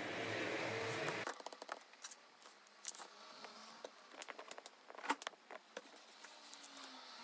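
Small clicks and taps of hands handling a baked polymer clay figure and its wire armature, with one sharper tap about five seconds in. Before that, a steady noise stops abruptly a little over a second in.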